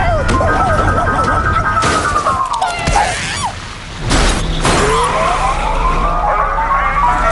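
Cartoon chase soundtrack: music with a long falling pitch sweep over the first three seconds and a rising sweep in the second half, over a steady low rumble. A sudden hit comes in about four seconds in.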